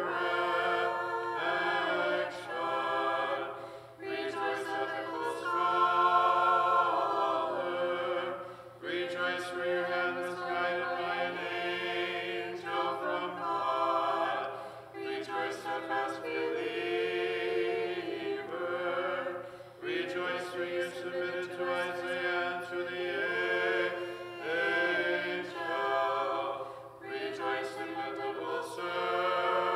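A small group of voices singing Orthodox liturgical chant a cappella in harmony, in slow held phrases of a few seconds each with short breaths between them.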